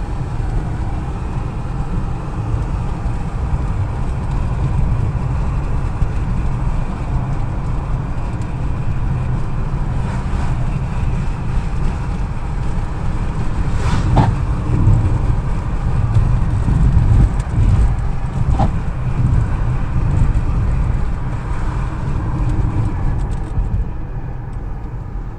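Road and engine noise heard inside a moving car's cabin: a steady low rumble. There is a sharp click about halfway through and a fainter one a few seconds later.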